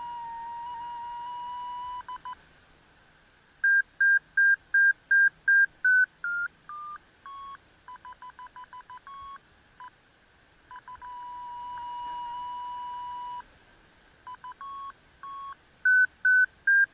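FrSky Taranis transmitter's audio variometer sounding through its speaker: a steady tone, then runs of short beeps whose pitch and rate shift, stepping down and later back up. The vario's pitch and beep rate follow the glider's climb and sink as it searches for lift.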